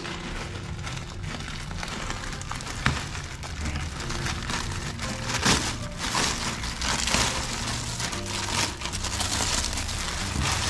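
Plastic courier mailer bag crinkling and tearing as it is ripped open by hand, then the clear plastic wrapping inside rustling as it is handled.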